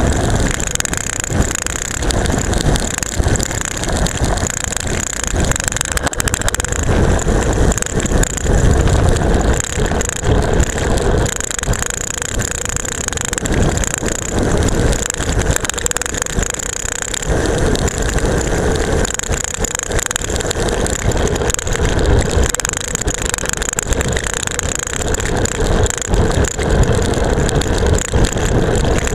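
Seatpost-mounted camera rattling hard in its mount on a road bike descending fast, a dense run of rapid rattles over a steady rush of road and wind noise.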